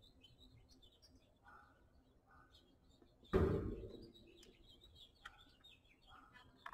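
Faint, scattered chirping of songbirds, with a single thump about three seconds in.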